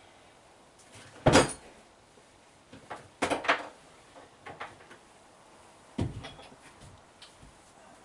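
Knocks and clatter of drawers and cupboard doors being opened and shut while someone rummages: three main knocks, about one, three and six seconds in, the first the loudest, with smaller clicks between.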